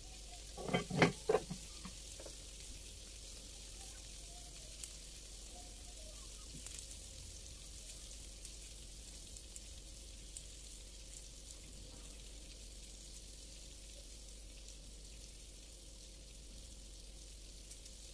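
Food frying in hot oil in a pan: a steady sizzle with scattered small crackles. A few loud clattering knocks come about a second in.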